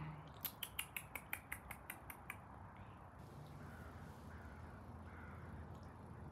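A quick, evenly spaced run of about ten sharp clicks, roughly five a second, lasting about two seconds, then only a faint steady background.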